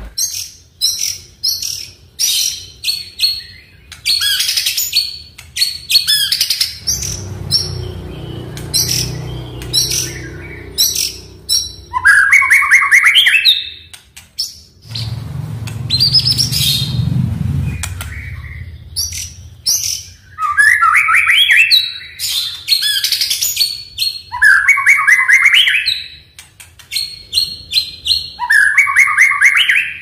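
White-rumped shama (murai batu) singing a loud, varied song: rapid strings of sharp high whistled notes broken by rattling phrases that climb in pitch. A low rumble swells in the background twice, about a quarter and a half of the way through.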